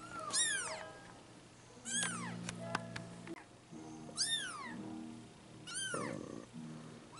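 Three-week-old Bengal kittens mewing: four short, high mews, each rising then falling in pitch.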